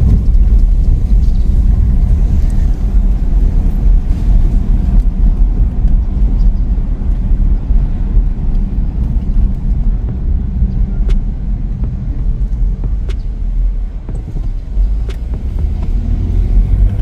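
A car driving, with a steady low rumble of road and engine noise heard from inside the cabin.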